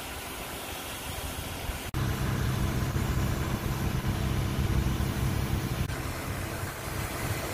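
A steady hiss from the burning straw bales, then, at a sudden cut about two seconds in, a louder steady low drone of a fire engine's motor running, as it does when driving the pump that feeds the hoses.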